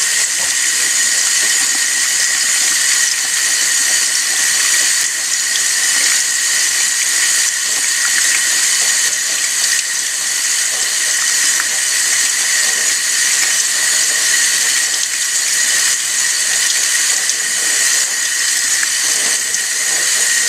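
Kitchen faucet running steadily into a stainless steel sink, the stream splashing over a hand and a makeup brush being rinsed under it.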